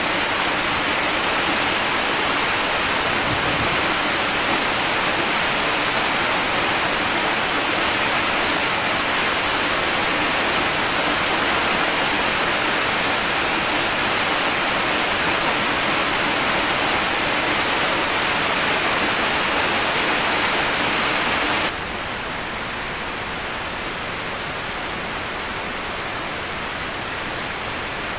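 Large waterfall, a steady rushing of falling water. A little over twenty seconds in, it cuts abruptly to a quieter, duller rush with the high hiss gone.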